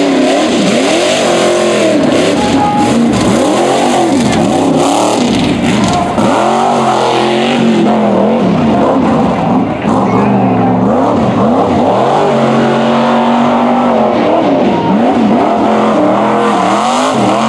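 Ford Bronco tuff truck's engine revving hard, its pitch climbing and dropping again and again as the throttle is worked on and off.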